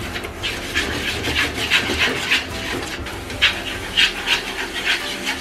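A bundle of chopsticks scraping and stirring ground chicken around a non-stick frying pan in quick strokes, about three a second, breaking the meat into fine crumbs for chicken soboro.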